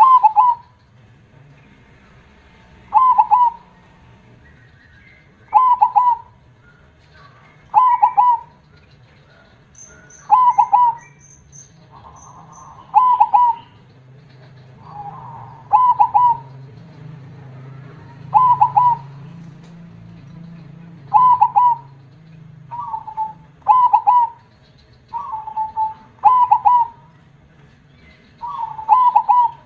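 Zebra dove (perkutut) singing its cooing song. A short phrase of a few quick notes repeats every two to three seconds, over a dozen times in all.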